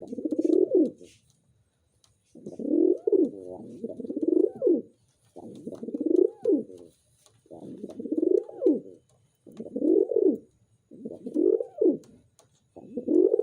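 Domestic pigeon cooing: low, rolling coos that each swell up in pitch and fall away, repeated about eight times with short pauses between.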